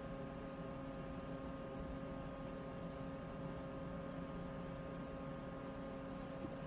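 Room tone: a steady hum with a faint even hiss underneath, with no distinct events.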